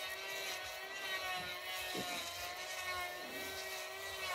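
A steady droning hum of several held tones, with a brief low falling sound about two seconds in.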